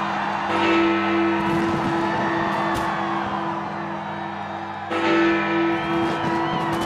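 Big Ben, the Great Bell of the Palace of Westminster, striking midnight: two strokes about four and a half seconds apart, each ringing on and humming between the strokes, with short firework crackles alongside.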